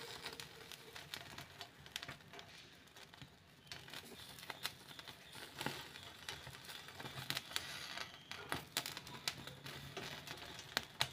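Corn cobs roasting on a wire rack over a gas burner flame, giving faint, irregular crackles and clicks as the kernels char.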